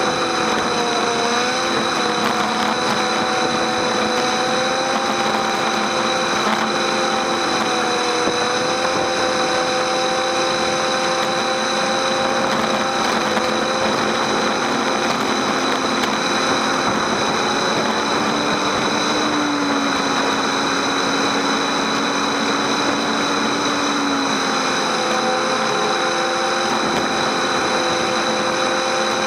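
Motorcycle engine running at a steady pace while riding, its note drifting slightly and shifting a couple of times, under a constant rush of wind and wet-road noise.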